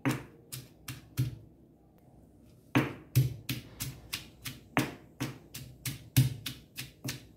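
Ginger, garlic and green chillies being pounded into a paste with a pestle in a stone mortar: four thuds, a pause of about a second and a half, then steady strokes about two and a half a second.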